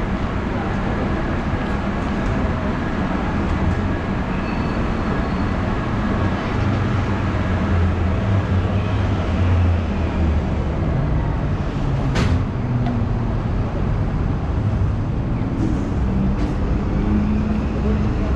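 City street traffic: a steady rumble of road vehicles, heaviest for a few seconds in the middle, with one sharp click about twelve seconds in.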